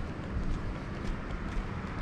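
Footsteps of a person walking on a city pavement over a steady low rumble of wind on the microphone.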